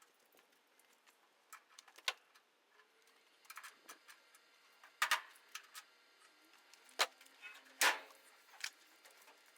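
Scattered clicks and metal knocks of hand tools as the hood hinge bolts are tightened, at irregular intervals, with the sharpest knocks about halfway through and near the end.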